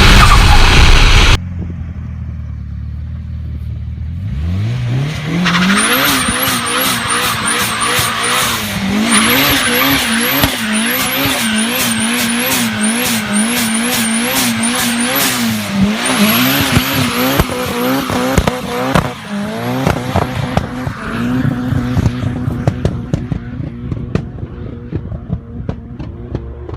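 Turbocharged car engine blipped repeatedly, each rev carrying a rising high turbo whistle, with rapid fluttering chatter from the turbo as the throttle closes between revs. A louder engine sound cuts off about a second in, and the revving tails off near the end.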